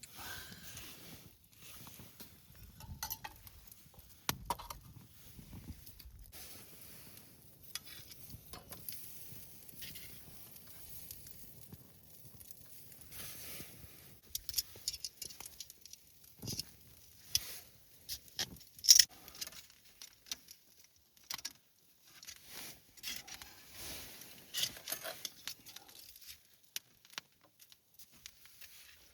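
Small wood campfire in a homemade fire pit crackling, with irregular soft crackles and scattered sharp pops, one louder pop about two-thirds of the way through.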